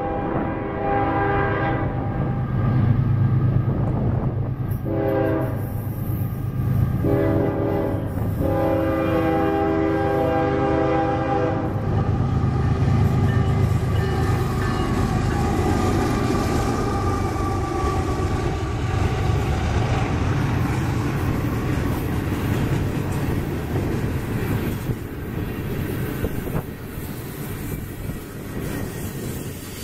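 Air horn of a Union Pacific GE AC45CCTE (ES44AC) diesel locomotive sounding for a grade crossing in several blasts, the last one long, ending about twelve seconds in. The locomotives then pass with a steady diesel rumble, followed by coal gondolas rolling by with a clickety-clack of wheels over the rail joints.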